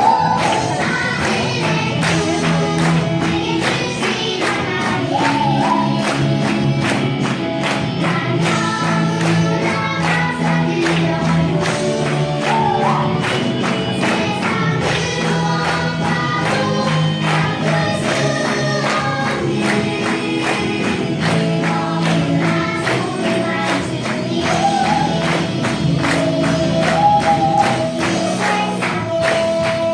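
A group of voices singing a Christian song over a steady beat.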